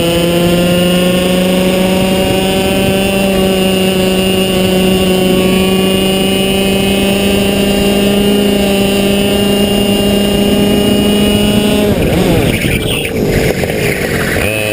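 Racing kart's two-stroke engine at high revs, its pitch climbing slowly as the kart accelerates along the straight. About twelve seconds in, the note breaks off into a rough jumble as the kart slows into a tight hairpin, and it settles on a lower, steady pitch near the end.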